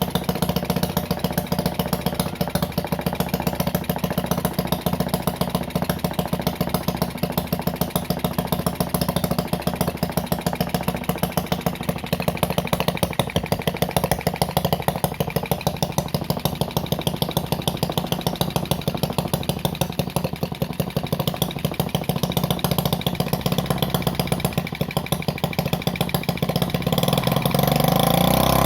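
Homemade miniature four-stroke engine built from a refrigerator compressor, running steadily with a rapid, even firing beat. Near the end it revs up briefly.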